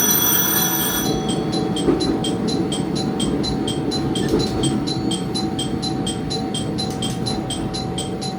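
Diesel railcar running along the track with a low rumble. A steady horn-like tone ends about a second in, and then a level-crossing alarm bell rings about twice a second.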